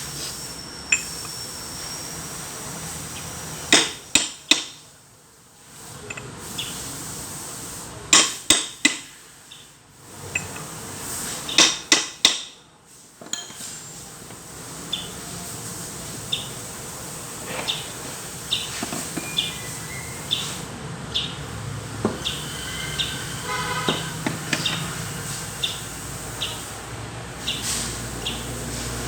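Metal hand tools knocking and clinking on metal parts. Several sharp knocks come in short groups in the first half, then many light taps and clicks follow.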